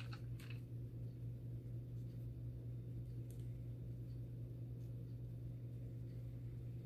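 A steady low hum fills the room, with a few faint clicks as small metal fittings and rubber o-rings are handled with gloved fingers.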